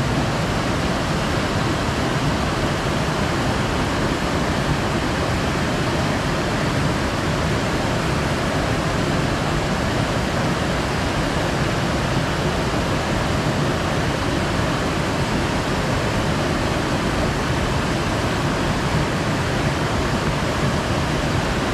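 Large waterfall: falling water making a steady, unbroken rush with no pauses or changes.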